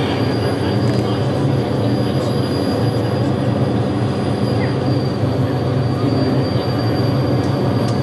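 Steady aircraft engine drone with a low rumble and a thin, high, steady whine.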